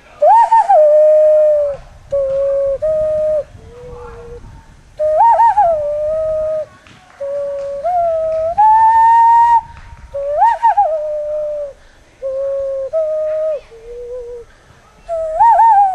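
Hand whistling: a flute-like tune whistled through cupped hands. It runs in phrases that repeat about every five seconds, each opening with a quick up-and-down flourish and then settling into held notes.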